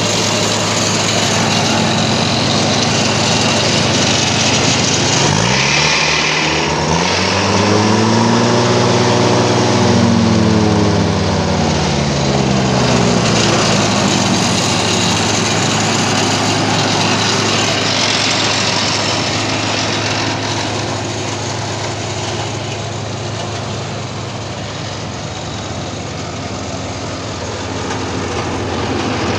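Timberwolf TW 190TVGTR tracked wood chipper's engine running steadily. From about five seconds in, its revs rise and then fall back once, settling by about thirteen seconds.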